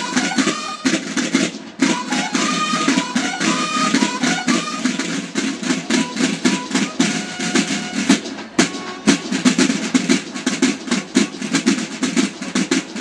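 Marching field drums of a Mexican military-style banda de guerra beating a rapid cadence, with bugle notes over them, mostly in the first few seconds.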